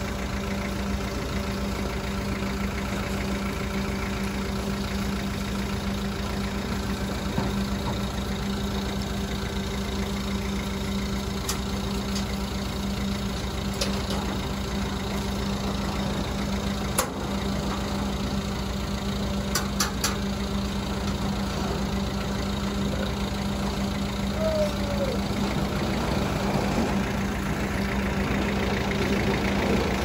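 Truck engine idling steadily, with a few sharp knocks about halfway through.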